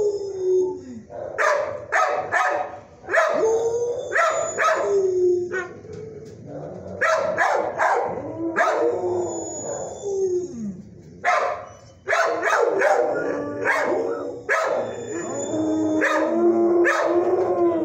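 Dogs in a shelter kennel barking again and again, mixed with drawn-out howls that slide up and then down in pitch.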